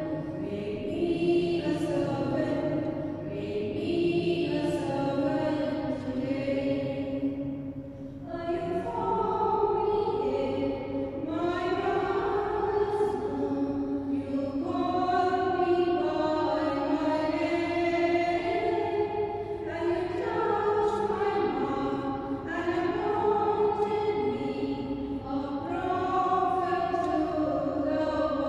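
A slow sung hymn or chant: long held notes that step up and down in pitch every second or two, in phrases with short breaks between them.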